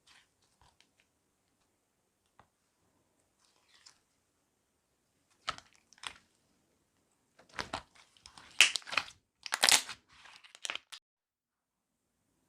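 Clay-mixed slime being squeezed and pulled by hand, with sticky crackling and popping. It is faint at first, then comes in a run of louder bursts in the second half.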